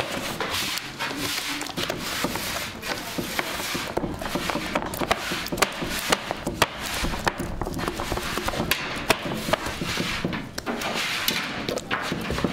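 Bakery work sounds: irregular knocks and taps on wood, several a second, over a steady noisy background.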